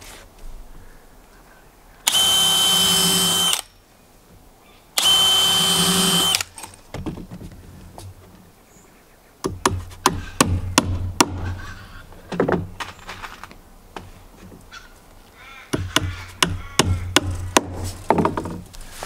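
Cordless drill pre-drilling a new timber deck board: two bursts of steady drilling, each about a second and a half long, with a steady whine. From about halfway on, a hammer drives nails into the board in two runs of sharp strikes.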